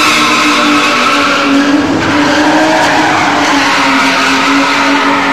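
BMW E30 325iS's M20 straight-six held at high revs while the car spins, rear tyres squealing and spinning against the tarmac. The engine note stays steady, dipping only slightly about two seconds in.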